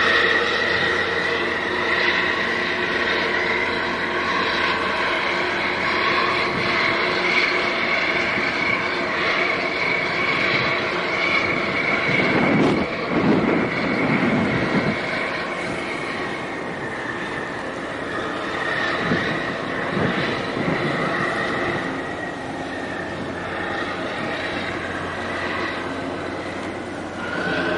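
Steady drone of ship engines from the passing LPG tanker and the tug beside it, with a high whine held through it. Wind buffets the microphone in gusts about twelve seconds in and again near twenty seconds.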